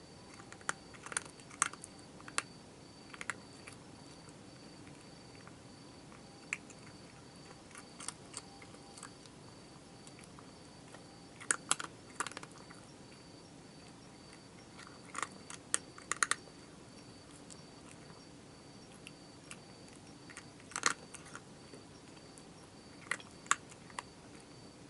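A cat crunching dry food, in irregular clusters of sharp crunches with pauses between. A faint steady insect trill runs underneath.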